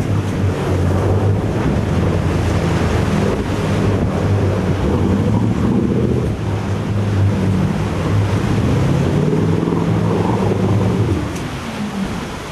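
Boat engine running steadily at trolling speed, with wind buffeting the microphone and water rushing past the hull. Near the end the engine note drops and gets quieter.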